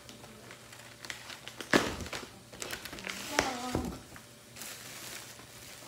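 Plastic wrapping and air-cushion packaging crinkling as a wrapped item is handled, with a loud knock a little under two seconds in.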